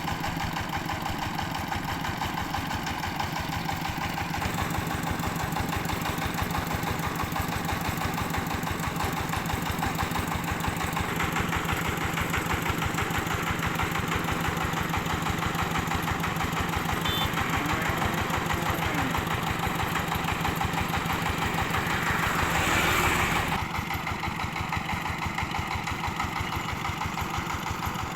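Engine of a homemade old-car rice milling machine running steadily with an even, rhythmic beat. A louder rush of noise lasts about a second and a half near the end.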